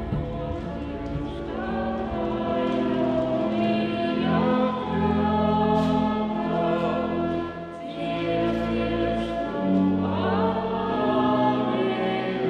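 Background music: a choir singing slow, held chords.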